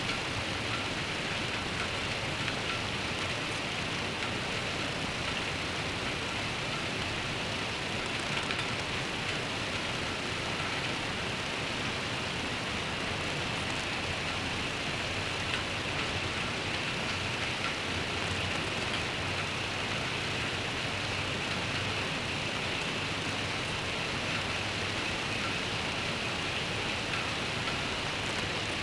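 Steady rain falling, an even hiss that does not change, with a low rumble of road traffic underneath.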